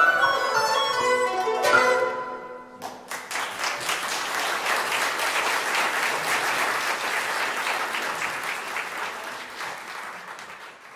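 A Chinese traditional ensemble of zithers, erhu and plucked lutes plays the last bars of a piece, ending on a struck final chord that rings out. Audience applause starts about three seconds in and fades away near the end.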